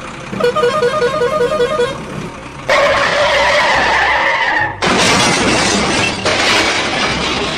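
Edited-in sound effects: a quick run of repeated electronic tones, then from nearly three seconds in a loud noisy crash-like sound with a held tone, followed by steady loud hissing noise that shifts abruptly about six seconds in.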